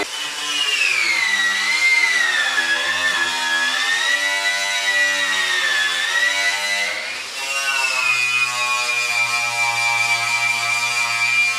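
Electric power tool running with a high whine whose pitch sags and recovers over several seconds, then settles to a steadier pitch with a low hum about seven seconds in.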